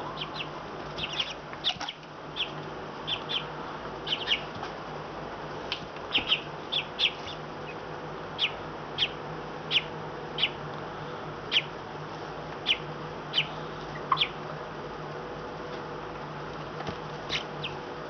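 Brood of four-week-old Cornish Cross and Black Australorp chicks peeping at rest: short, high single peeps, several close together in the first few seconds, then spaced about a second apart.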